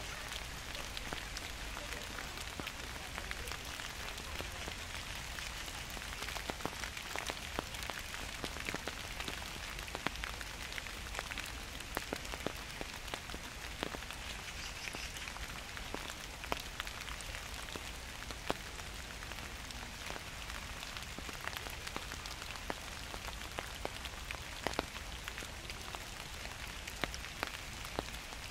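Gentle autumn rain falling steadily, with many close drops ticking sharply one by one on nearby surfaces.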